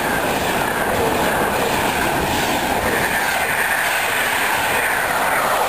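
Frecciabianca passenger coaches running past at speed close by: a loud, steady rush of wheels on rail.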